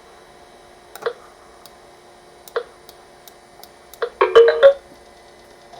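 Sharp mouse clicks a second or so apart while jigsaw pieces are moved on a Macintosh Performa 476. About four seconds in comes a short burst of electronic tones from the computer's speaker, as the Jigsaw Puzzle is completed.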